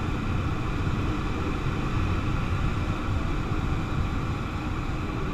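Steady rush of airflow around a Nimbus 3D sailplane in gliding flight, heard inside the cockpit as an even low rumbling hiss, with no engine running.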